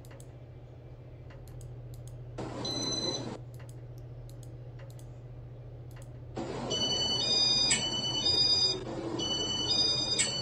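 Electronic beeps from a ceiling fan's control set to demo mode. About two and a half seconds in comes a short two-tone beep. About six seconds in, a quick ringtone-like run of high beeps at changing pitches starts, in two phrases, all over a steady low hum.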